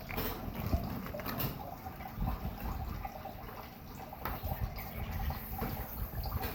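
Running water splashing steadily while a fish is gutted, with occasional short knocks and wet handling sounds.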